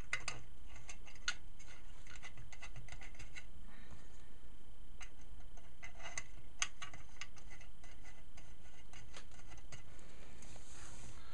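Scattered small clicks and light taps in irregular clusters, from small computer hardware and screws being handled.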